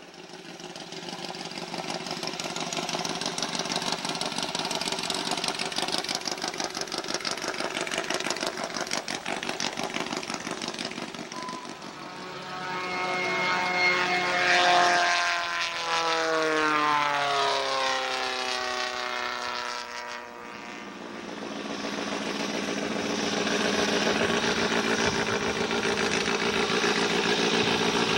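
Formula V air racers' small Volkswagen-based piston engines driving propellers. One runs steadily at first, then a racer flies low past about halfway through, loudest around the middle with its pitch falling as it goes by. Near the end an engine runs steadily again as a racer taxis.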